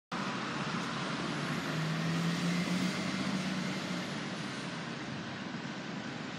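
Garbage truck driving past on a road, its engine and tyre noise swelling to a peak about three seconds in and then easing off, with a steady low engine note through the middle.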